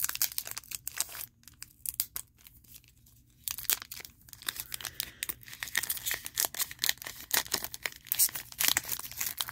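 Topps Garbage Pail Kids trading-card pack being torn open by hand, its foil-lined wrapper crackling and crinkling as the sealed seam is peeled apart. The crackling eases off for a couple of seconds about a second in, then comes thick again.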